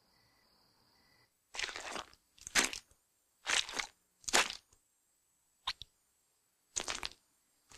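Short wet crunching and squishing noises, six in a row spaced about a second apart, from a cartoon character working at a heap of mashed potatoes by hand and mouth. They begin about a second and a half in, after a near-silent start.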